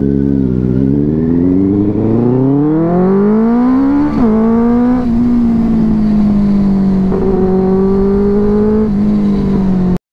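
Benelli TNT 600i inline-four motorcycle engine pulling away under throttle. Its pitch climbs steadily for about four seconds, dips at a gear change, then holds a steady note while cruising.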